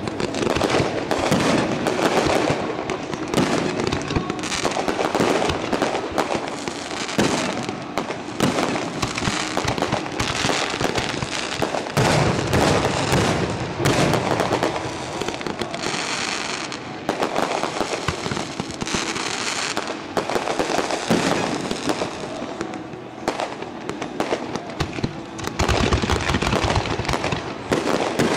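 Aerial fireworks display, shells launching and bursting in quick succession: a dense, near-continuous string of bangs.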